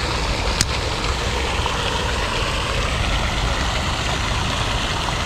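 Steady outdoor noise: wind rumbling on the microphone over the hiss of the pond's fountain aerator, with one sharp click about half a second in as the spinning reel is worked.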